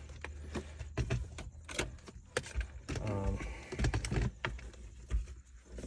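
Plastic console trim around a 3rd-gen Toyota 4Runner's automatic shifter being lifted out by hand: a string of irregular sharp clicks, snaps and light rattles as the clipped pieces come free.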